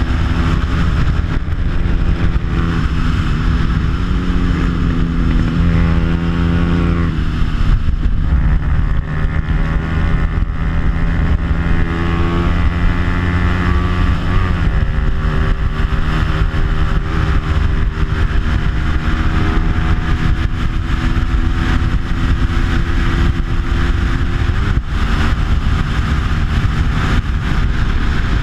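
Bajaj Pulsar 200's single-cylinder four-stroke engine, stock with only an aftermarket exhaust, running hard on track. Its pitch holds or climbs, then drops sharply three times, as the rider shifts or rolls off for corners. A heavy rush of wind on the bike-mounted camera runs underneath.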